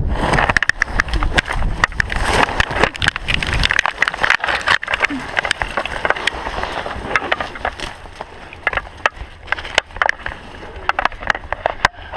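A skydiver crashing into trees under his parachute: branches snapping and cracking against his helmet and body for the first few seconds. Then quieter rustling of canopy fabric and twigs with scattered snaps as he hangs caught in the branches.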